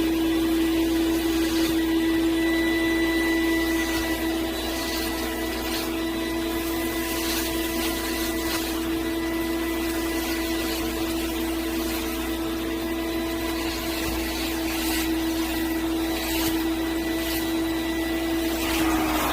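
Mattress-cleaning vacuum machine running steadily: a constant motor hum with a rush of air, unchanging throughout.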